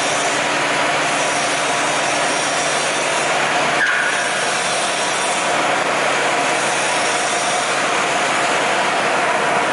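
Ficep Gemini HD CNC plasma cutting machine running with a steady loud hiss and hum as its torch carriage traverses the gantry, with a single sharp click about four seconds in.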